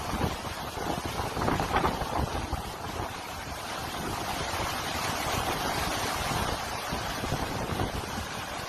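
Hurricane wind buffeting the microphone over a steady rush of storm-driven water, gusty at first and then steadier.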